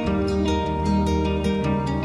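Background instrumental music with an even, quick pulse of notes.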